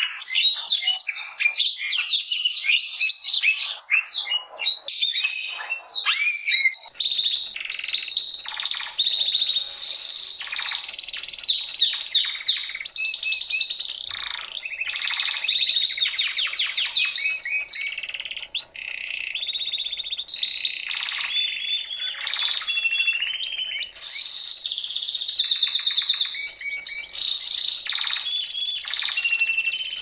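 Canary singing a long, continuous song of rapid trills and chirped phrases, with brief pauses twice.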